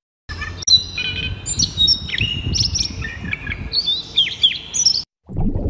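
European robin singing: a run of high, thin whistled notes and quick downward slurs, over a low background rumble. The song cuts off about five seconds in.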